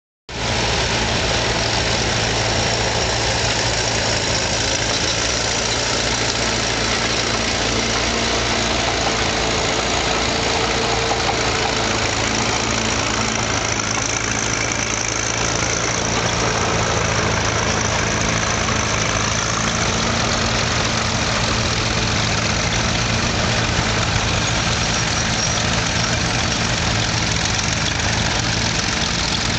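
Vintage crawler tractor's engine running steadily as it pulls a working elevating scraper through dirt.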